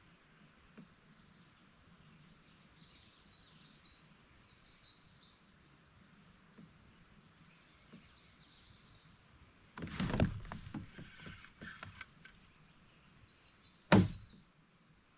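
Hard knocks and clatter against a plastic fishing kayak: a cluster of rattling knocks about ten seconds in and one sharp knock near the end, over faint bird chirps.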